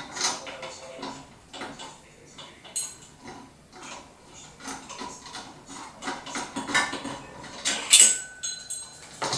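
Screwdriver and screws clicking and knocking against the metal blade brackets as blades are screwed back onto a ceiling fan motor: many small irregular taps and rattles, with a brief high squeak near the end.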